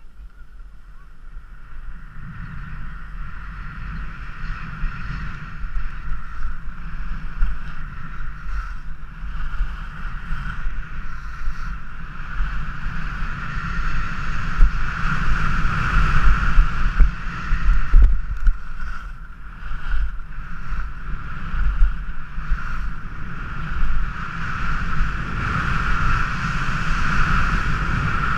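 Wind rushing over an action camera's microphone as a skier runs down a piste, with skis scraping on the packed snow. It builds up over the first few seconds as speed picks up, then stays loud with uneven gusts.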